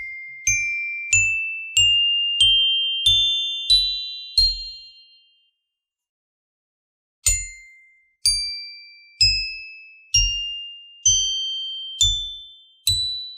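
Mallet strikes on a professionally made glockenspiel playing an ascending scale, one ringing note after another, each note higher than the last. After about two seconds of silence the same rising scale is played on the zoolophone, a set of animal-shaped aluminium metallophone plates tuned by computational shape optimization.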